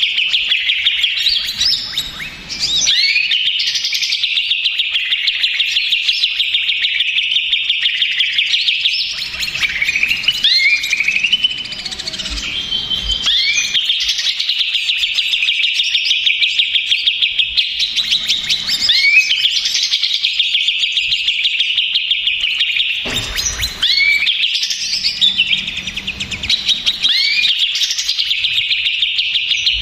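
Cucak ijo (green leafbird) singing a dense, rapid chattering song without pause, broken every few seconds by quick rising whistled sweeps.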